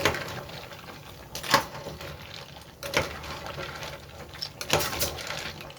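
Cooking utensils knocking and clinking against a pot, a handful of sharp strikes every second or so over a low steady background.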